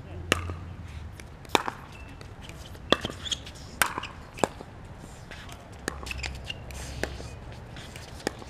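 Pickleball rally: paddles hitting a hard plastic pickleball, a series of sharp pocks about one a second.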